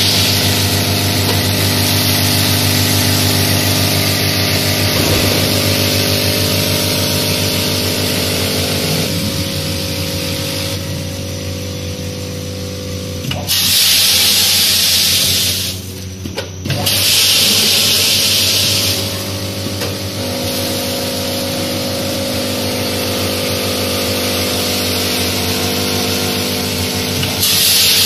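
Automatic vertical form-fill-seal packing machine with a weigher running: a steady machine hum with several bursts of hiss lasting a couple of seconds each.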